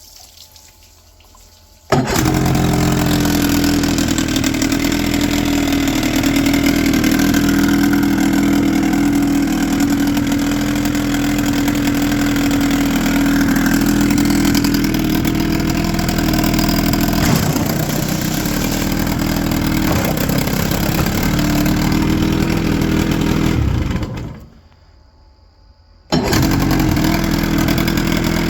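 1996 Johnson 25 hp two-cylinder two-stroke outboard engine starting up about two seconds in and running steadily, now that a timing adjustment has cured its no-start. It dies away near the end and is quiet for about two seconds before running again.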